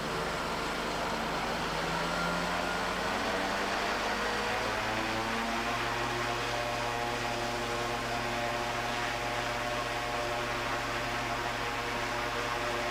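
König SD 570 three-cylinder two-stroke radial engine of a Maya ultralight running with its propeller on a ground run-up after a period of storage. Its pitch climbs over the first few seconds, shifts about halfway in, then holds steady.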